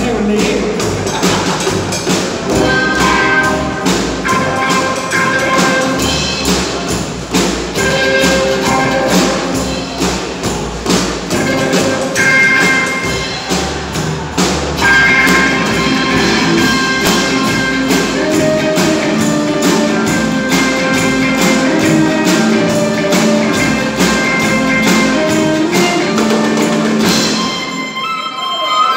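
Live rockabilly band playing an instrumental passage: slapped upright double bass and drums keeping a steady beat under held, sustained high notes. The sound dips and thins out briefly near the end.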